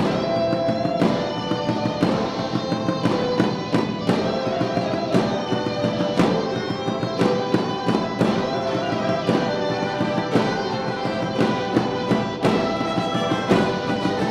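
Live wind band playing a holiday piece: held brass and woodwind chords over a steady percussion beat.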